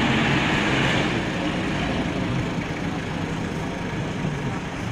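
Steady vehicle and road noise, with faint voices in the background.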